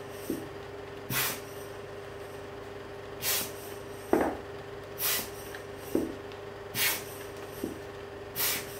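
Short hissing puffs of air, five in a row about one every one to two seconds, with a few small squeaks between them and a faint steady hum underneath.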